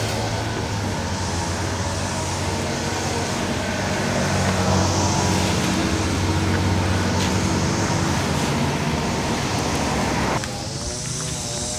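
Pressure washer running and spraying snow foam through a foam gun onto the car: a steady hiss over a low motor hum. It cuts off abruptly about ten seconds in.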